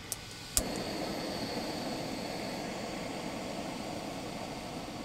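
Backpacking gas canister stove: a sharp click about half a second in, then the burner running with a steady hiss under a pot of water.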